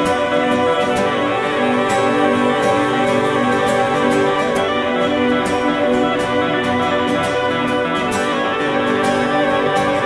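Instrumental progressive rock music with long held chords, steady in level throughout.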